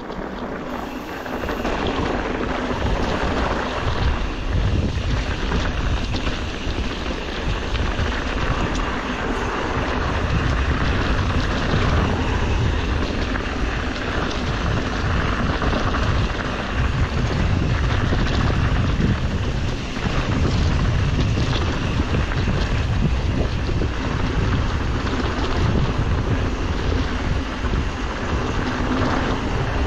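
Wind rushing and buffeting over the microphone of a camera carried on a mountain bike at speed, over a low rumble from the bike rolling on a dirt trail. The rush grows louder about two seconds in and then holds.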